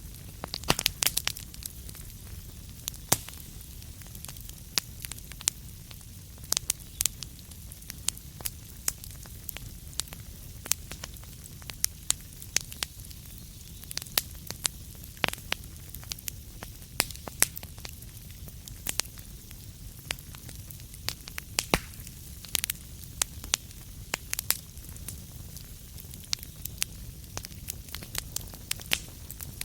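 Wood fire crackling in a fireplace: irregular sharp pops and snaps, some in quick clusters, over a steady low rumble.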